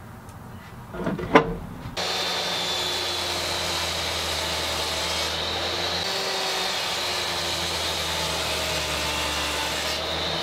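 Table saw cutting a shallow dado groove in a lacewood board: the steady noise of the blade running and cutting, with a faint high whine. It starts sharply about two seconds in and cuts off abruptly near the end.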